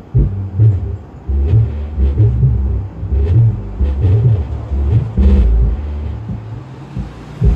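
Music played loud through a power amplifier and parametric preamp into speakers, its deep bass beats pulsing about twice a second as the preamp's bass control is turned up, with a sharper hit a little past halfway.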